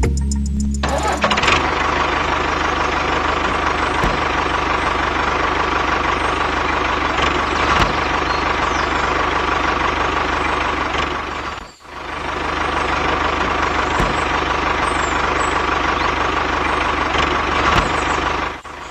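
Vehicle engine running steadily with a knocking chug, after a short bit of music at the start. The engine cuts out briefly about two-thirds of the way through, then carries on.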